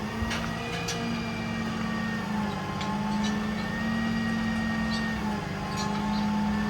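Hydraulic service-truck crane running off the truck's diesel: a steady hum whose pitch steps up and down as the proportional controls are worked, with a few light clicks.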